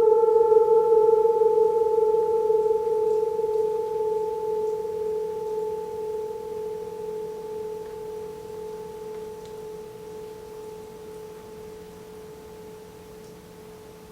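A ringing metal sound-healing instrument holds one clear, steady pitch with a couple of faint higher overtones, slowly fading away as it rings out.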